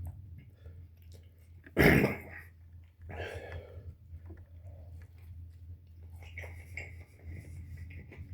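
A person chewing a mouthful of fried chicken sandwich, with one sudden loud short sound about two seconds in and a softer breathy sound about a second later.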